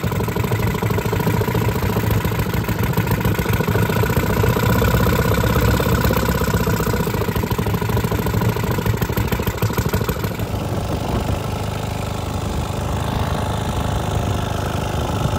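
1925 Caille Pennant lightweight twin outboard motor idling steadily. About ten seconds in, the sound switches to the same motor running on the water, slightly quieter.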